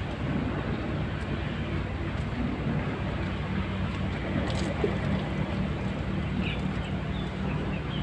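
A motor runs steadily with a low drone over a hissing background, and there is a single short sharp knock about four and a half seconds in.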